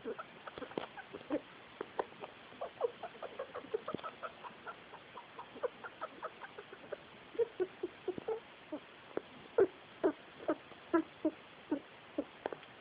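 Pet rat making an irregular run of short squeaky clicks and chirps, several a second, louder in the second half: an abnormal noise that has worried her owner for about a week.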